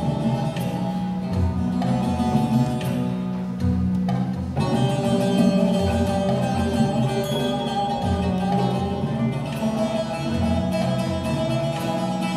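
Turkish folk ensemble playing an instrumental passage of a bozlak, led by plucked string instruments with sustained notes.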